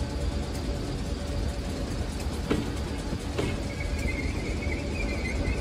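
Train running past with a steady low rumble and two sharp knocks around the middle; a thin high whine comes in a little past halfway.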